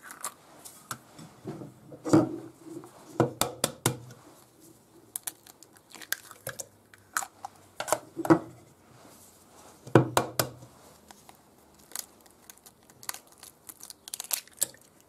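Eggshells cracking and crunching as brown eggs are broken open by hand over a cup: a series of sharp cracks and snaps, one egg after another.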